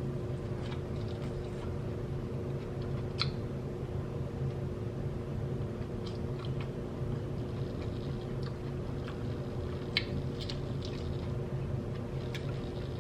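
A person chewing and biting food close to the microphone, with a few short crisp crunches, the clearest about three seconds and ten seconds in. A steady low hum runs underneath.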